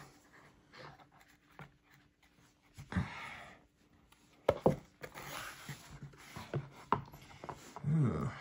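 Thick cardboard game pieces being handled and slotted together: scattered taps, clicks and rubbing of chipboard, with a short breath near the end.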